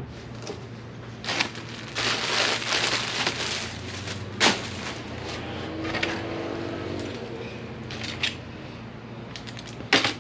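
Packaged accessories being rummaged out of a cardboard shipping box and steel drum: irregular rustling and crinkling of packaging, with a sharp knock about four and a half seconds in. A low steady hum runs underneath.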